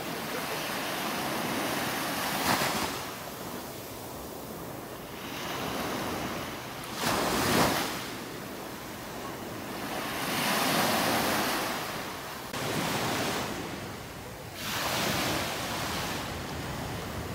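Sea waves breaking and washing up onto a sandy beach, the surf swelling and fading every few seconds, the biggest wash about halfway through.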